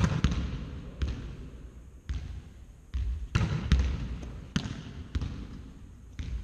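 Volleyballs being hit and bouncing on a sports-hall floor: a string of sharp slaps and thuds, each echoing in the hall.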